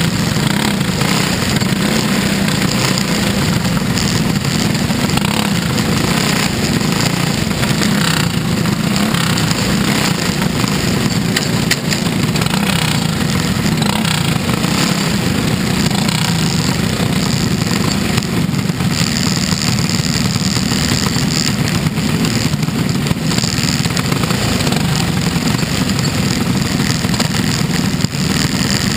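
Dirt-track race car's engine running loud and steady at speed, picked up by an onboard cockpit camera.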